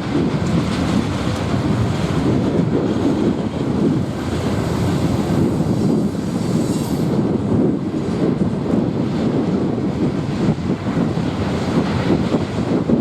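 A train rolling past, a steady loud rumble of cars on the rails, with some wind on the microphone.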